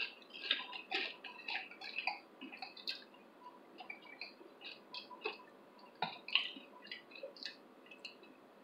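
Close-miked chewing of a tortilla chip with guacamole: quiet, irregular wet mouth clicks and small crunches.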